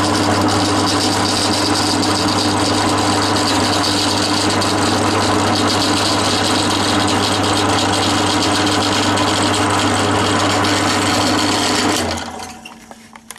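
A standard drill press running a homemade tool-steel cutter through a VW Beetle 1200 crankcase, boring the barrel openings out to fit 1600 barrels on the first pass: a steady motor hum under the continuous scraping of the cut. The sound stops abruptly about twelve seconds in and dies away.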